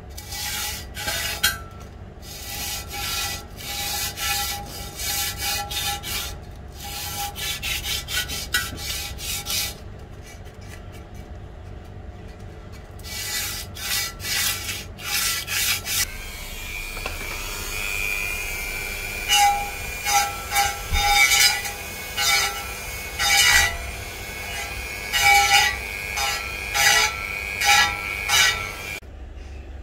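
Epoxy steel filler on a wheel rim's edge being sanded down. For the first half it is rhythmic rubbing strokes by hand with short pauses. About halfway a small rotary tool with a sanding drum takes over: a steady high motor whine with repeated grinding bursts as the drum touches the rim.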